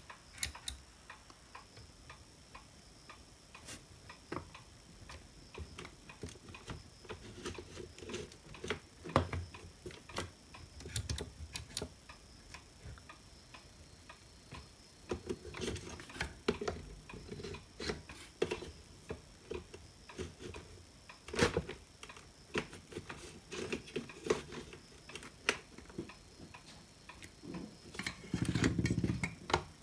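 Irregular clicks, taps and a few dull thumps from tools, multimeter leads and parts being handled on an electronics workbench.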